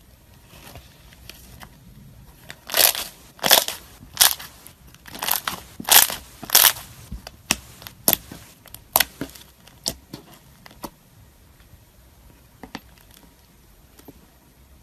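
Thick, fluffy slime being pressed and poked by fingers: a run of sharp pops and crackles as trapped air bursts out, loudest a few seconds in and thinning out toward the end.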